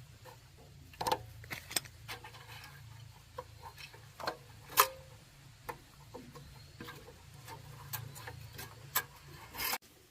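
Scattered clicks, taps and knocks of small parts and hand tools being handled, with some rubbing, over a low steady hum that cuts off suddenly just before the end.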